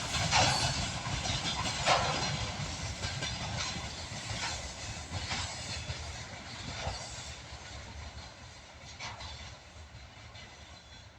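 Freight train wagons rolling over rail joints with irregular clicks and clacks over a rumble, fading steadily as the train moves away.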